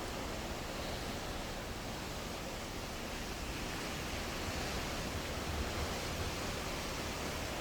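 Sea water rushing and churning in a steady wash of noise, as heard from a ship.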